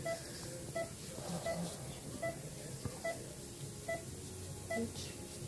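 Short electronic beeps from a patient monitor, all at the same pitch, repeating evenly about every three-quarters of a second, at a heartbeat's pace of roughly 80 a minute.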